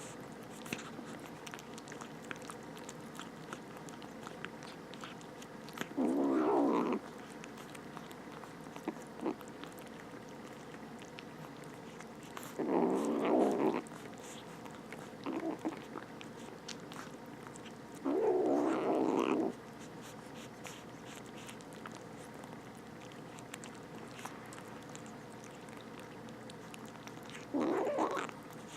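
Two stray kittens growling while they eat, four growls of about a second each spread through the stretch, with small chewing and biting clicks between them.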